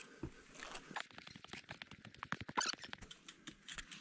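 Quiet, quick run of light clicks and taps from a mountain bike being hauled up a steep trail by hand. The clicks are thickest from about one to three seconds in.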